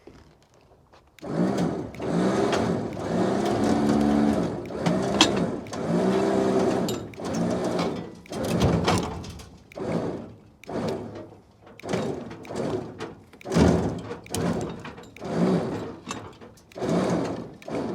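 Electric trailer winch motor whining under load as it pulls the rear axle and deck of a scrapped pickup onto a trailer: one longer run starting about a second in, then a string of short bursts of about a second each.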